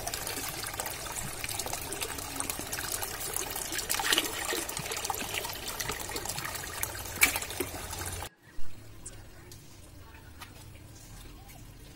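Hydroponic nutrient solution splashing and churning in a reservoir tank, a steady watery rush with scattered crackles. It cuts off abruptly about eight seconds in, leaving a much quieter background broken by one brief thump.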